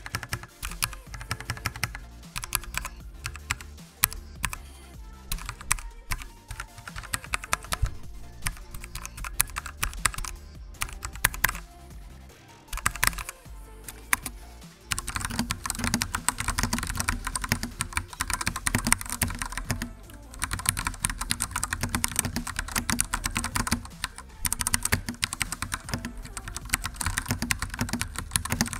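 Typing on a gaming keyboard: a continuous run of key clicks and clatter. It gets denser and louder about halfway through.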